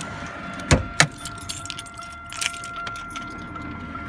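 Car keys jangling and clicking as they are handled at the ignition, with two sharp clicks close together about a second in. A faint, steady high tone with even pulses runs underneath.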